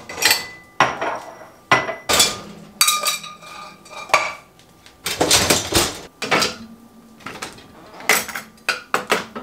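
Dishes, glasses and cutlery clinking and knocking against each other and the wire racks as a dishwasher is loaded: a string of irregular clatters, some ringing briefly.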